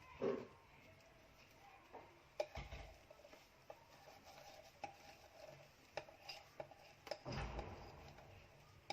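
Kitchen utensil work on a bowl and cake tin as lemon cake batter is poured and scraped out. Light clinks and scrapes are interrupted by three dull knocks, one near the start, one about two and a half seconds in and one near the end.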